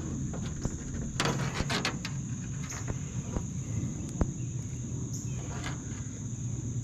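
Scattered small clicks and rustles of parts being handled, loudest between one and two seconds in, with one sharp click around four seconds in, over a steady high insect trill in the background.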